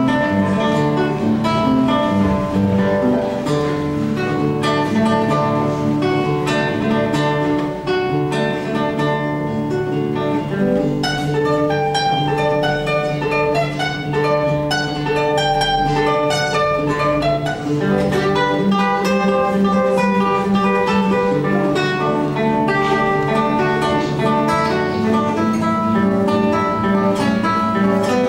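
Instrumental music led by a plucked acoustic guitar, playing a melody over chords.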